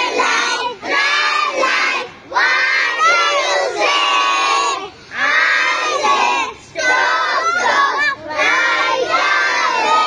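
A group of young children chanting in unison, loud phrases of one to two and a half seconds separated by brief pauses.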